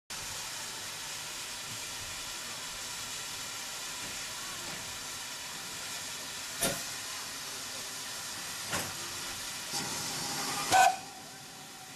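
Steam hissing steadily from a Great Western pannier tank steam locomotive, with a few sharp knocks. The loudest knock comes near the end, and the hiss drops off right after it.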